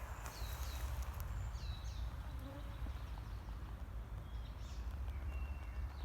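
Small forest birds chirping in short, downward-sliding notes every second or so, over a steady low rumble.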